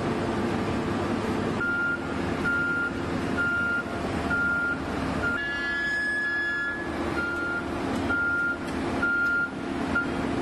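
Construction machine's warning alarm beeping about once a second over the steady running of a heavy machine's engine. Midway, a longer, higher tone is held for just over a second.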